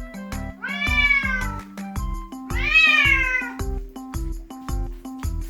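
Munchkin kitten meowing twice, each call about a second long and falling in pitch, the second louder. Background music with a steady beat plays throughout.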